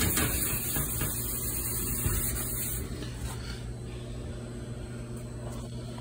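A steady mechanical hum with a loud hiss over it; the hiss drops away about three seconds in, leaving the hum.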